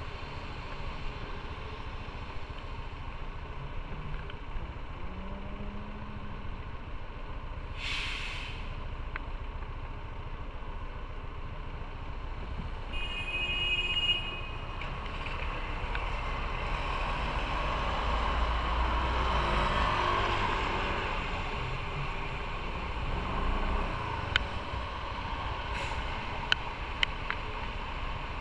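Traffic on a rain-wet city street heard from a motorcycle stopped at a crossing: a steady low rumble and tyre hiss, a short sharp hiss about eight seconds in, and a brief high-pitched tone around fourteen seconds. Passing vehicles swell louder in the middle, with a few light clicks near the end.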